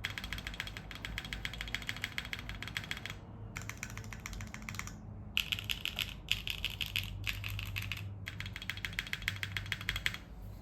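Neo65 mechanical keyboard being typed on fast: stock Kailh BCP switches on an aluminium plate, with ABS keycaps and case foam, clacking in quick runs broken by short pauses about three, five and eight seconds in.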